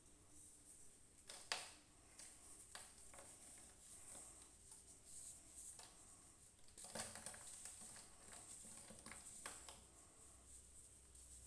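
Molded baking-soda shapes being broken and crumbled by hand: faint, scattered crunching and crackling, with a sharper crack about a second and a half in and a busier burst of crunching around seven seconds in.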